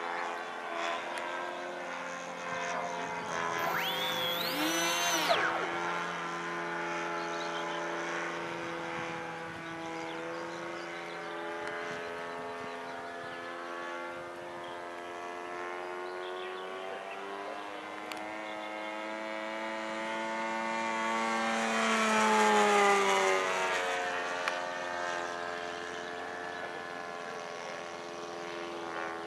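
Radio-controlled model Spitfire flying overhead, its engine and propeller running steadily with the pitch drifting up and down as it turns and passes. It is loudest about three quarters of the way through, the pitch dropping as it goes by. There is a short rising whistle-like sound about four to five seconds in.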